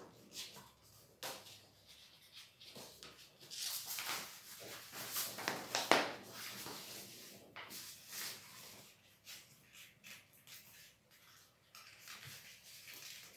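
Paper rustling and crinkling as a sheet is folded and creased by hand, with a louder run of rustling in the middle.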